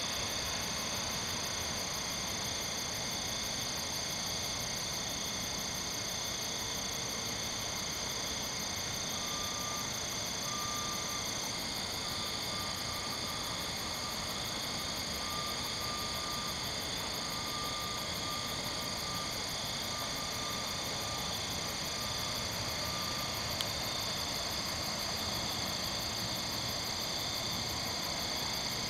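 Night insect chorus of crickets and katydids: steady, unbroken high-pitched trilling. From about ten seconds in until a few seconds before the end, a lower note pulses on and off beneath it.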